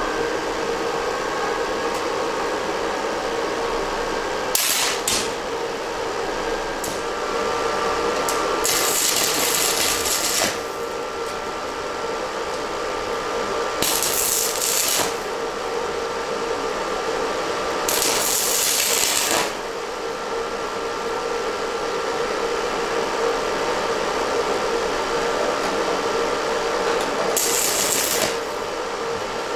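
Stick arc welder welding an M8 nut onto the back of a steel motorcycle carrier: a steady sputtering arc noise with a faint hum under it, swelling into louder hissing surges about five times.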